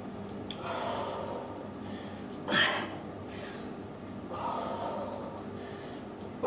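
A woman breathing with effort through a weighted strength set. Two long breaths of about a second each, with a short, sharp breath between them about two and a half seconds in, which is the loudest sound.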